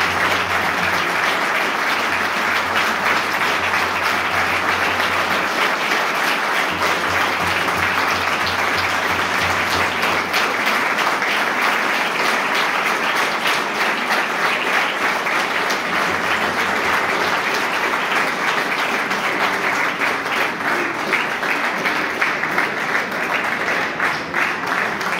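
Audience applauding: dense, steady clapping from a seated crowd that thins a little near the end.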